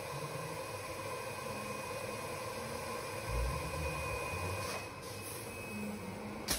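Filquip FVC-1 green coffee bean vacuum loader running with a steady rushing hiss. Near the end comes a short, sharp burst of air, the reverse-pulse air cleaning blowing back through its head filters.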